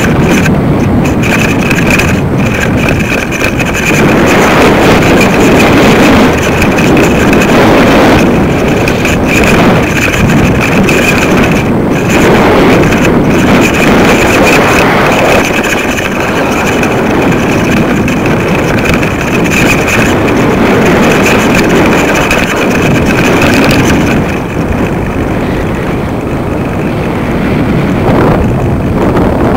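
Wind buffeting the microphone of a camera rig hanging from a kite line, a loud uneven rushing that surges and eases. A thin, high, steady tone runs under it and fades near the end.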